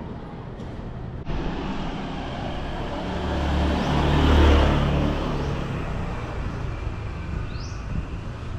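A motor vehicle passes close by on a narrow street. Its engine and tyre noise grows to a peak about four and a half seconds in, then fades.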